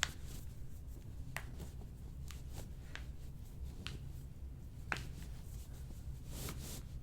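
About half a dozen small, sharp clicks roughly a second apart, from hands working and pulling on a foot's toes and ankle during a chiropractic adjustment, over a low steady room hum. The first click, right at the start, is the sharpest.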